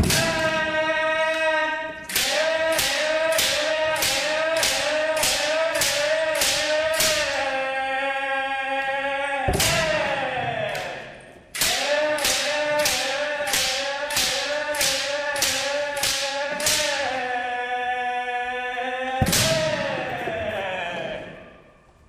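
Kendo kiai, a continuous shout held on one pitch, over rapid bamboo shinai strikes at about two a second. There are two runs of nine or ten strikes, each followed by a long drawn-out shout and one hard strike, the pattern of a kirikaeshi drill.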